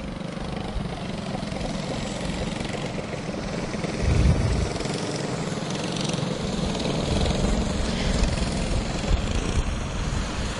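Several go-kart engines running together as the karts circle at caution pace under the yellow flag, with a brief louder low rumble about four seconds in.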